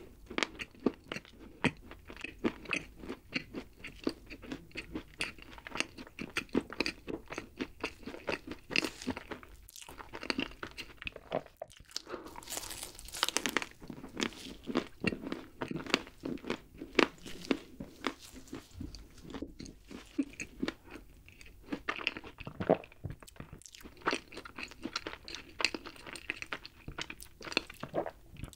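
Close-miked chewing of a chocolate-coated Choco Pie snack cake, with many quick, irregular wet mouth clicks. There is a short breathy hiss about halfway through.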